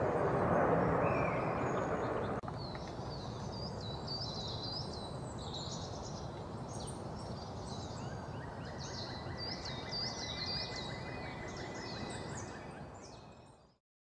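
Forest ambience: a steady rumbling background noise for the first couple of seconds, cut off abruptly, then many short, high-pitched bird chirps and calls over a quieter background hiss, fading out at the very end.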